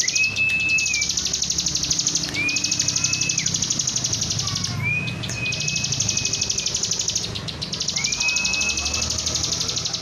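Caged bar-winged prinia (ciblek) singing a fast, high buzzy trill that runs on with a few brief breaks. Four long, level whistled notes are heard over it.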